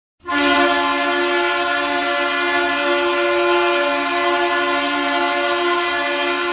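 Ice hockey arena goal horn blasting a loud, steady two-note chord, starting about a quarter second in and held without a break.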